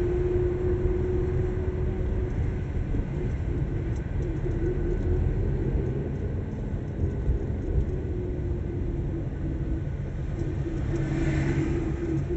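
A car driving slowly on a city street, heard from inside: steady low rumble of engine and tyres with a steady engine hum. A brief higher-pitched noise rises near the end.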